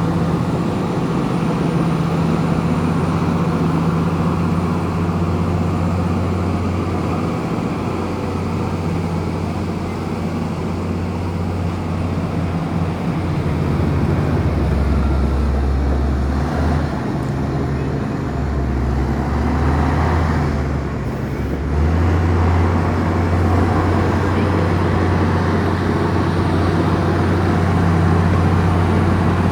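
Komatsu bulldozer's diesel engine running steadily while it pushes dirt. Its note drops lower for several seconds in the middle, then picks back up.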